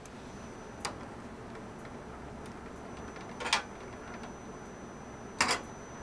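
Small metal clicks and clinks from a screwdriver and the metal PCIe slot cover of a PC case as the back plate is taken off: a light click about a second in, then two louder clattering clinks, one midway and one near the end.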